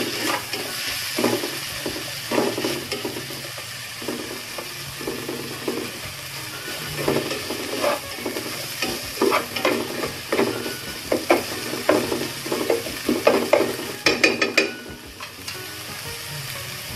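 Food frying and sizzling in a pan while a utensil stirs it and scrapes the pan in repeated strokes, with a quick run of scrapes about fourteen seconds in.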